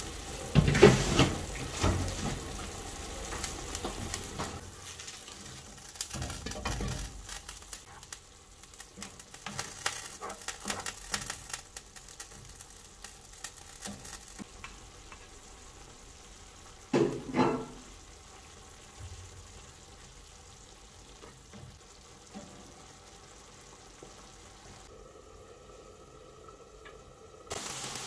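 Ground meat with diced carrots sizzling and simmering in a skillet, stirred with a utensil that scrapes and knocks against the pan, loudest about a second in and again around seventeen seconds in.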